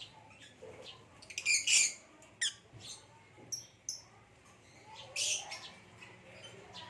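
Lovebirds giving short, shrill chirps and squawks in scattered bursts, the loudest about a second and a half in and again about five seconds in.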